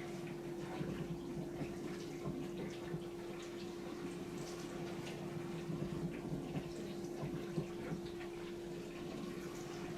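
Bosch SKS60E02GB compact dishwasher running a wash cycle: a steady pump hum with water spraying and splashing inside the tub.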